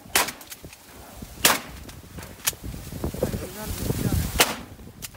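Shotgun shots in a duck marsh: about four sharp reports at irregular intervals, the loudest about a second and a half in and near the end.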